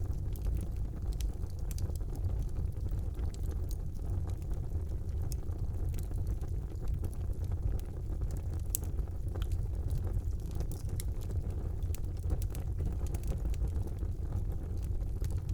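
Wood fire burning in a fireplace: a steady low rumble of the flames with frequent small, irregular crackles and pops.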